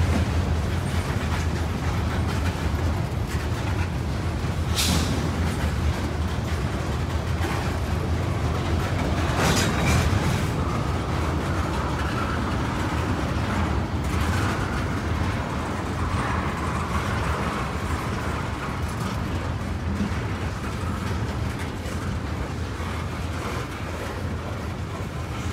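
Loaded railroad tank cars of a freight train rolling past: a steady rumble of steel wheels on rail, with sharp metallic clanks about five and ten seconds in.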